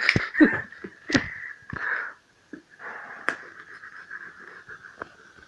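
A delivery parcel being handled and opened: scattered sharp crinkles, snaps and rustles of packaging, over a faint steady high-pitched whine.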